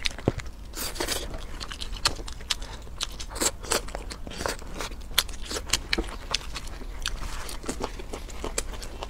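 Close-up eating of spicy crayfish meat: biting and chewing with many sharp, irregular wet crunches and mouth clicks.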